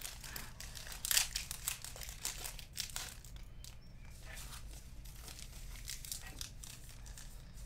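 Card pack wrappers being crinkled and torn open, a run of irregular rustles and small clicks, busiest in the first three seconds and fainter after.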